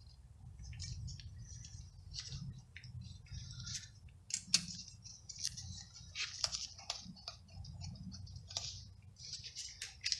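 Faint, scattered light clicks and small metallic taps of hand tools and parts being handled during wheel-bearing work, over a low steady hum.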